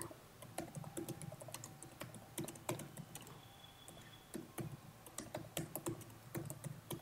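Typing on a computer keyboard: a faint, irregular run of keystrokes with a short pause about halfway through.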